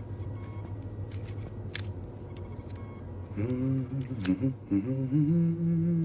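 A man humming a tune in a low voice, with held, sliding notes, starting about three seconds in. Before that there is only a steady low background hum with a few faint short electronic bleeps and clicks.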